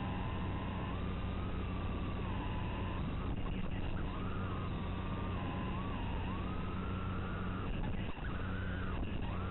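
Brushless motors and propellers of a Cerberus mini FPV quadcopter whining in flight, the pitch rising and falling with the throttle over a steady low hum. The whine breaks off briefly about eight seconds in.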